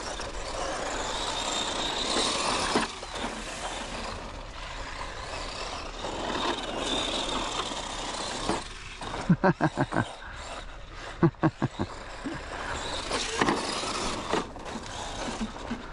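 Arrma Fury Mega 550 electric RC short course truck driving over loose dirt: the whine of its brushed 550 motor over the hiss and crunch of its tyres on dirt. Between about nine and twelve seconds comes a quick run of short, sharp pulses.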